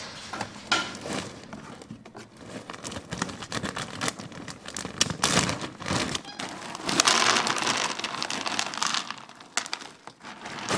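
Dry monkey biscuits rattling and clicking as they are poured into a container, with a bag crinkling; the pouring is heaviest about seven to nine seconds in.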